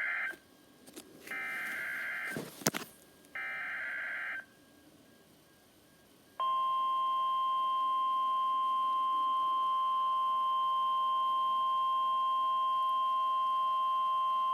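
Emergency Alert System SAME header: three short bursts of buzzy data tones about a second apart, with a sharp click during the second. After a short pause comes a long steady alert tone lasting about nine seconds. Together they mark the start of a new broadcast warning, here a coastal flood warning.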